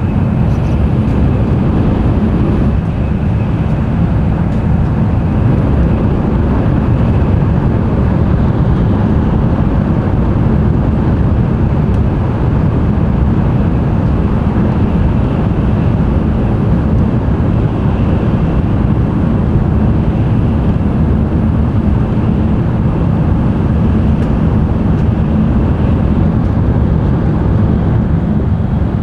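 Cabin running noise of an N700-series Tokaido Shinkansen at speed: a steady deep rumble of wheels and air with a faint high whine above it, unchanging throughout.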